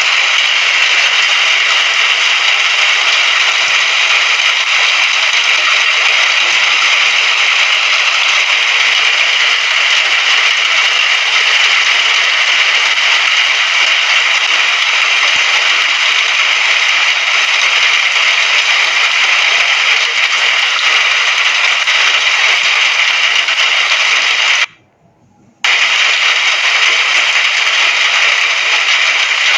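Rain falling steadily, a dense even hiss. It cuts out for about a second about 25 seconds in, then comes back at the same level.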